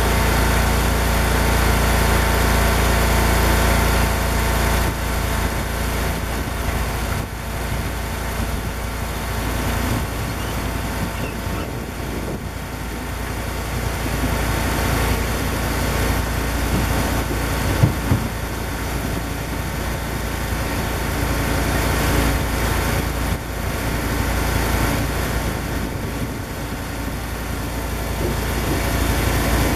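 Cord King M1820 firewood processor running steadily, its engine driving the hydraulics as the ram pushes logs through the splitting wedge. The level rises and falls, with a pair of sharp knocks a little past the middle.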